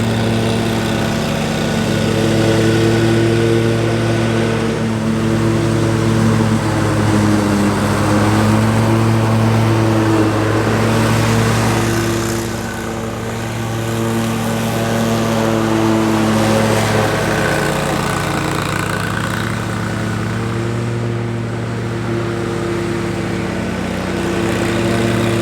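Exmark Lazer Z zero-turn commercial mower's engine running steadily while mowing, its pitch wavering slightly and easing off a little about halfway through.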